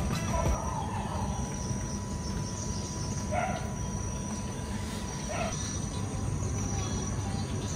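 Tropical garden ambience: insects chirring steadily in a high, even drone, with two short calls about two seconds apart near the middle, over a low steady background noise.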